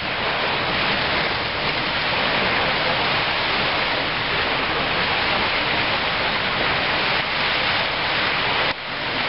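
Steady rushing of surf on a beach, an even hiss with no break, that drops suddenly near the end.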